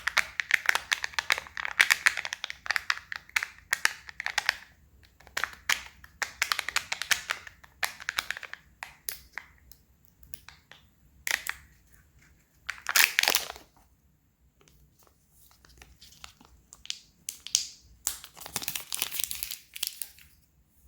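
Kinder Surprise egg wrappers being crinkled and torn open by hand, in several bursts of crackling separated by short pauses.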